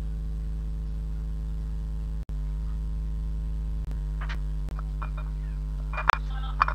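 Steady electrical mains hum, a low drone with its overtones. It breaks off for an instant a little over two seconds in. A few short clicks and taps sit over it in the second half, the sharpest about six seconds in.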